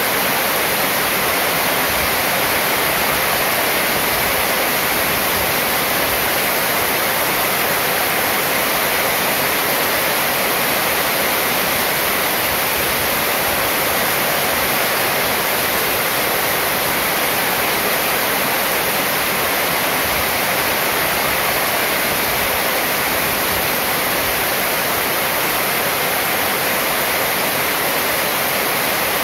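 Heavy rain falling on a corrugated metal roof and pouring off its edge, a loud, steady hiss with no let-up.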